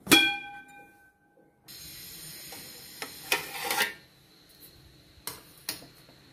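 Aluminium steamer lid clanking sharply as it is lifted, ringing for about a second, followed by a cluster of lighter metal clatter and two short knocks of pot and vessel being handled.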